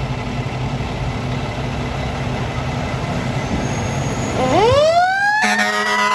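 Fire engine's diesel engine running steadily. About four and a half seconds in, a siren winds up, its pitch rising fast and still climbing at the end. About a second later a steady air-horn blast sounds over it.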